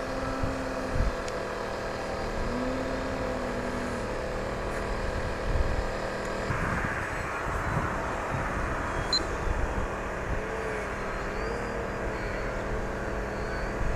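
Radio-controlled aerobatic model airplane's motor and propeller droning overhead, the pitch rising and falling slowly with throttle as it flies manoeuvres, with a few low thumps about a second in and midway.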